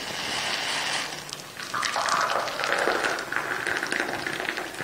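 Hot pomegranate-seed tea poured from a stainless steel saucepan through a wire mesh strainer into a china teacup: a steady splashing trickle of liquid into the cup.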